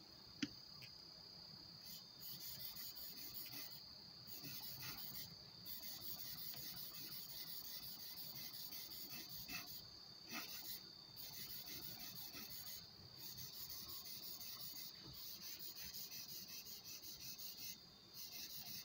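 A 4 mm chisel being honed on a finishing whetstone: quick back-and-forth scraping strokes in runs of a few seconds, with short pauses between runs. A sharp click about half a second in.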